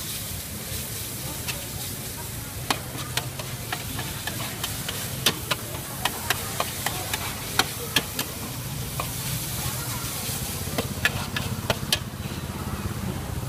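A metal spatula scraping and clacking irregularly against a large steel wok as noodles and bean sprouts are stir-fried, over a steady sizzle. The clacks stop near the end, when the spatula is left resting in the wok.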